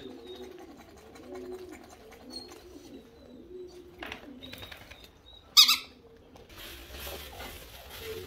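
Pigeons cooing over and over in low, repeated phrases. About five and a half seconds in comes a single short, loud, high-pitched sound, and after it a steady hiss.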